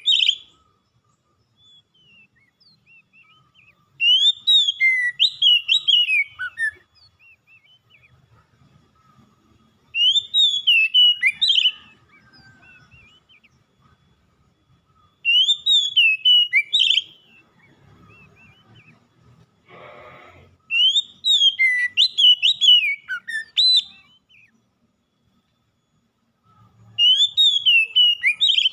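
Oriental magpie-robin singing: loud phrases of quick, sweeping whistled notes, each about two to three seconds long, repeated five times with short pauses between.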